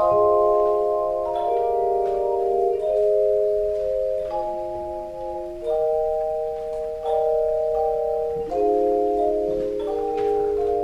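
Instrumental music with no voices: chords of several held notes that change about every second or so.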